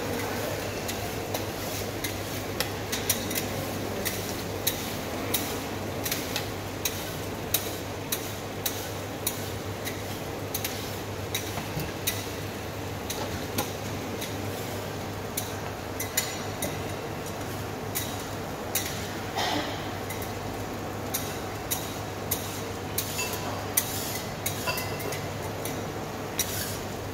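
A metal ladle clinking and scraping against steel soup pots and a porcelain bowl as broth is ladled out, with many short, irregularly spaced clinks over a steady background hum.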